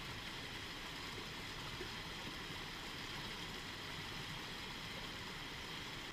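Water rushing steadily over the rocks and small cascades of a stream.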